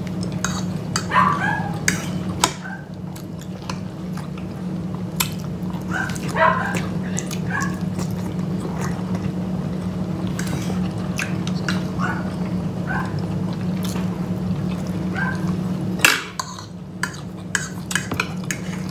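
Pet dogs whining in short, high calls a few times, over forks clicking against plates and a steady low hum that drops away near the end.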